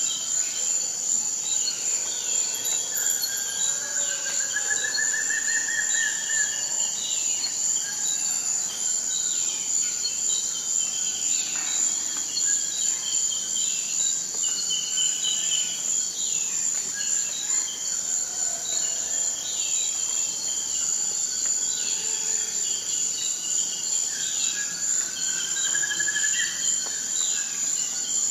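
Forest ambience: a steady, high, unbroken insect drone with birds calling and trilling over it, including a rising trill about four seconds in and again near the end.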